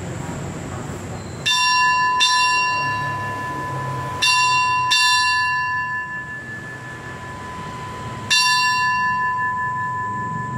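Brass railway station hand bell struck five times, in two pairs and then a single stroke, each strike ringing on and slowly dying away.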